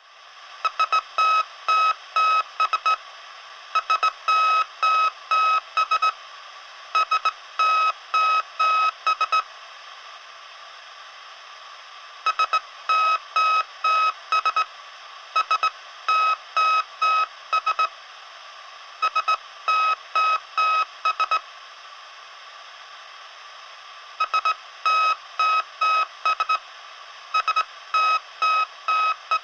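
Morse code SOS sent as a beeping tone: three short beeps, three long, three short, then a pause of about three seconds before it repeats. It runs over a steady radio-like hiss.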